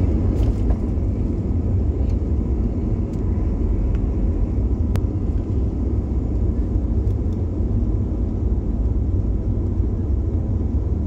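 Jet airliner moving on the ground, heard from inside the cabin: a steady, loud low rumble of engines and rolling noise, with a few faint ticks.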